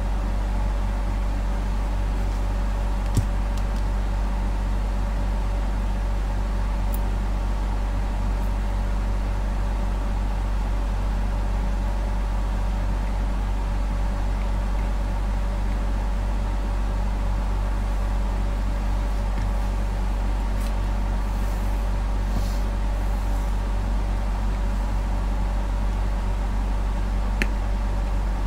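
A steady low hum with a fainter whine above it, unchanging throughout, with a couple of small clicks of metal tools touching, about three seconds in and near the end.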